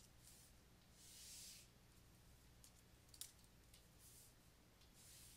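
Near silence with a few faint clicks and soft brushing strokes: a stylus tapping and sliding on a drawing tablet.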